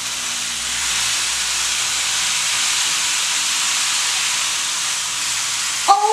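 Rain stick tipped on end, its fill trickling down through the tube in a steady rain-like hiss.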